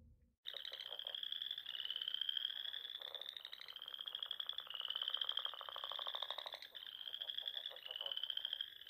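Frogs calling in a fast, high trill, starting abruptly about half a second in and repeated in phrases of about a second, each rising slightly in pitch.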